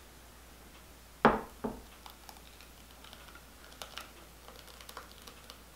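Kitchen handling of a glass mixing bowl and a spatula while pie filling is poured into a pie shell. There is a sharp knock about a second in and a lighter one just after, then light clicks and scrapes of the spatula against the bowl as the filling is scraped out.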